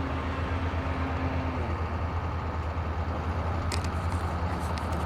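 Distant model airplane engine droning at low throttle for slow flight, fading out about a second and a half in. Under it runs a steady, pulsing low rumble, with a few sharp clicks near the end.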